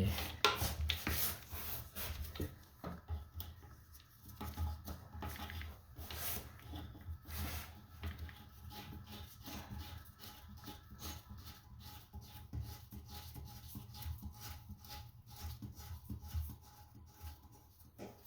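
Water supply hose being connected and hand-tightened onto a toilet: irregular rubbing, scraping and small clicks of hands working the coupling nut and fittings.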